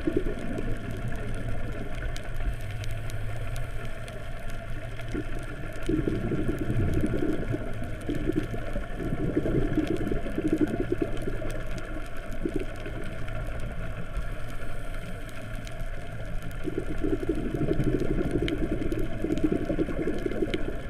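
Muffled underwater rumble heard through a GoPro's waterproof housing. A scuba diver's exhaled bubbles from the regulator gurgle in surges every few seconds.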